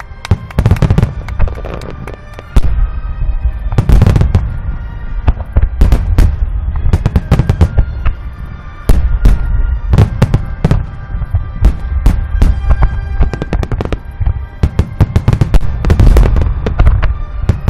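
Large aerial fireworks shells and a starmine barrage going off in quick succession: a dense run of booms and cracks with a deep rumble, the heaviest bursts about four, nine and sixteen seconds in. Music plays underneath.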